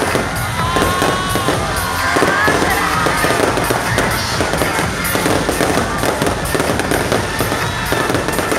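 Fireworks bursting and crackling in a dense, continuous barrage, with whistles gliding up and down in pitch during the first couple of seconds.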